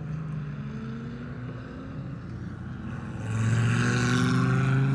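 Dodge Viper's V10 engine at speed on a race track. It gets much louder about three seconds in as the car passes close by, over the steady drone of other cars lapping further off.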